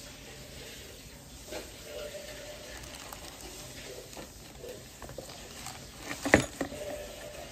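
Unpacking by hand in a cardboard box: plastic packaging crinkling and rustling with small knocks, and one sharp clack a little past six seconds in, the loudest sound, as the adapter board and its ribbon cable are lifted out.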